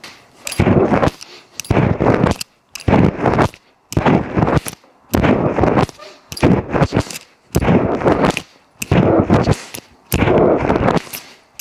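A man breathing hard during a set of pull-ups, with a forceful breath on each rep, about nine in a steady rhythm roughly one every 1.2 seconds.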